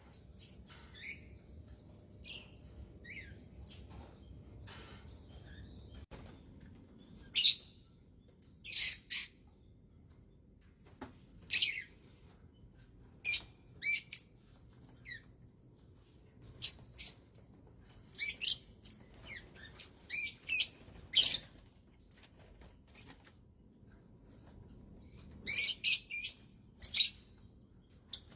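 A songbird chirping: short, high chirps and quick trills in clusters, with pauses of a second or two between them.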